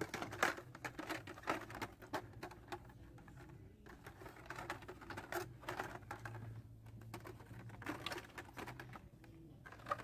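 Carded Hot Wheels blister packs being flipped through on a store peg hook: an irregular run of light plastic clicks and rustles.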